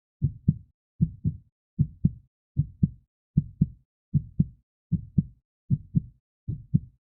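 Heartbeat: a steady lub-dub rhythm of paired low thuds, about 77 beats a minute.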